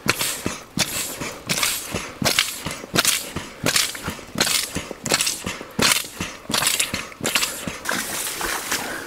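Air pump inflating the softened tubes of an inflatable boat: even strokes of rushing air, about three every two seconds.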